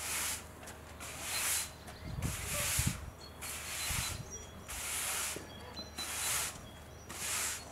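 Rhythmic brush strokes, a short swish about once a second, with a few low knocks around the middle; birds chirp faintly.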